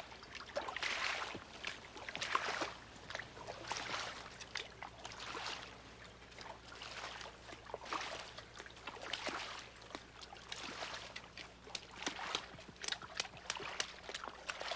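Hoes and a spade scraping and chopping into garden soil in irregular strokes, more frequent near the end, over a faint steady low hum.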